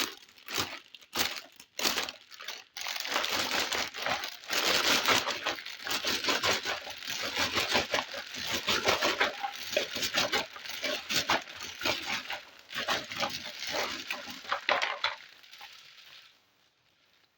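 Packaging being crinkled, rustled and torn open as a toy set is unpacked: a dense, continuous crackle that dies away near the end.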